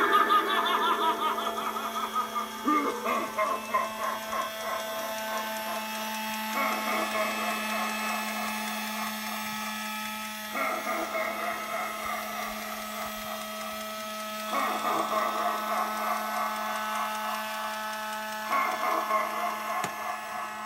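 Spirit Halloween Fright in the Box animatronic clown prop running just after popping up from its box. A loud passage at the start fades within a couple of seconds. After that the prop's mechanism and sound come and go in repeating stretches of about four seconds over a steady hum.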